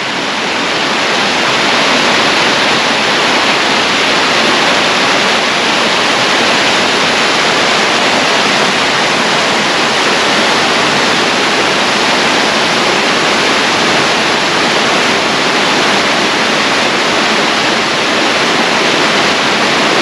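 Gradašnica mountain river rushing over rocks and small cascades: a steady, even rush of water.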